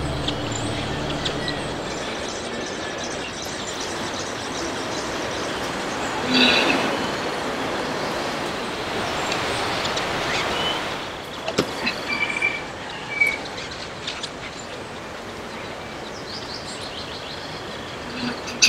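Steady outdoor ambient hiss with a swell about six seconds in and a few short bird chirps around twelve seconds, plus scattered light clicks. Low music dies away in the first second or two.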